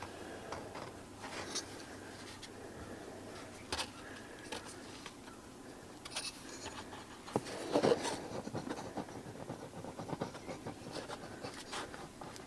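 Handling noise from a removed car door speaker being turned over in the hands: light scratching, rubbing and small clicks, with a louder scraping rustle about eight seconds in.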